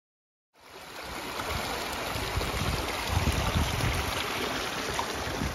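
Shallow stream running and splashing over stones, starting abruptly about half a second in, with gusts of wind on the microphone.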